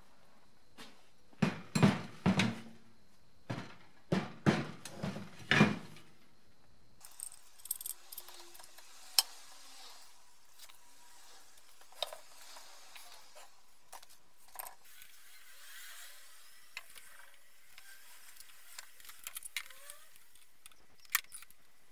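Metal strut parts and hand tools being handled: a run of sharp knocks and clinks in the first six seconds, then scattered lighter clicks and scrapes of tools on the strut.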